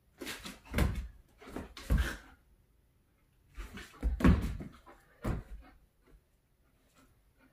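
A German Shepherd puppy's paws thumping and scrabbling on a hardwood floor and against a couch as it jumps at a tug toy. There are several bursts of knocks, the loudest about four seconds in as the dog leaps at the couch.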